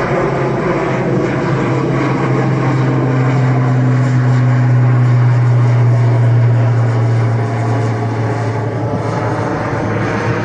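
ATR 72 twin-turboprop airliner passing low overhead while climbing out, its engines and propellers giving a steady low droning hum. The sound swells to its loudest about two thirds of the way through, then begins to ease as the aircraft moves away.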